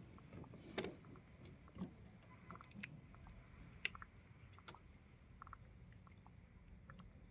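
Faint handling noise: scattered small clicks and taps over a low steady background as a freshly hooked eel is held and shown.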